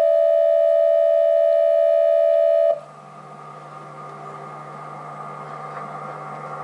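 Steady electronic alert tone from a mock emergency alert broadcast, loud and unchanging, cutting off abruptly a little under three seconds in. A quieter synthesizer drone of held tones over a low hum follows, slowly growing louder.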